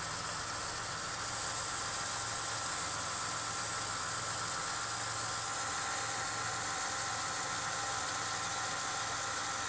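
Chevy Impala's 3.9-litre V6 running steadily, heard from beneath the car: an even hum with a high hiss over it.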